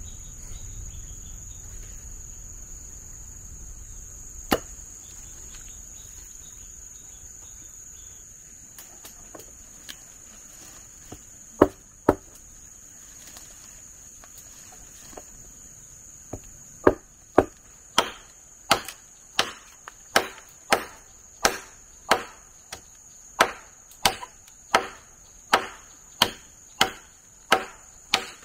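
Chopping blows on wood: a few single strikes, then, from about two-thirds of the way in, a steady run of nearly two a second. A continuous high-pitched insect drone carries on underneath.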